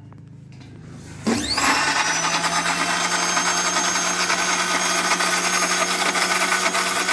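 Electrosun Sumo commercial mixer grinder switched on about a second in: its motor whines up to speed in a fraction of a second, then runs steadily and loudly, grinding lemons in its 5-litre stainless steel jar.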